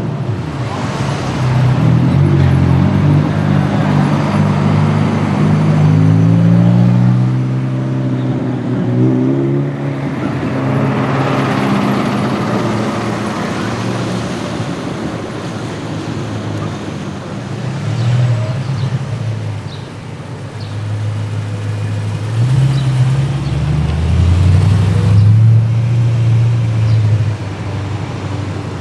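Car engines accelerating and passing by. One engine note climbs steadily in pitch over the first several seconds, and another revs up and down near the end, with the rush of passing traffic between.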